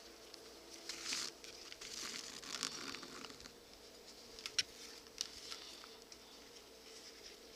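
Leather and thread being handled while sewing a mitt cuff: irregular scratchy rustling, with two sharp light clicks about halfway through.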